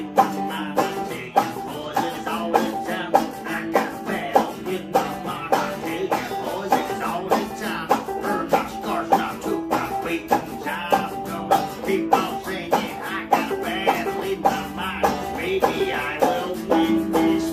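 Banjo and hollow-body guitar playing together in a steady picked-and-strummed rhythm, with a chord rung out and held near the end.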